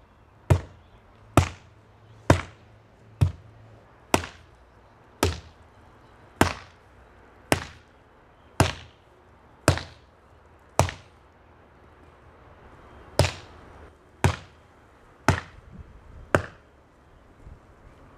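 Metal pipe tamper pounded down into earth fill at the crown of an earthbag dome, compacting the last bucket of fill. Sharp strikes come about once a second, with a pause of a couple of seconds near the middle before they resume.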